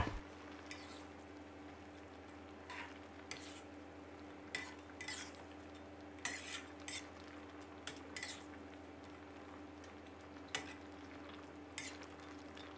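A metal ladle scrapes and knocks against a metal pot as it stirs chicken feet braising in curry-paste liquid, the mid-cook turning that lets them cook evenly. It makes faint, irregular clinks and scrapes about once a second, over a steady low hum.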